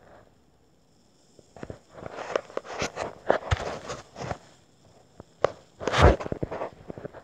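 Handling noise of a handheld phone camera: irregular rustling and knocks, with one loud thump about six seconds in.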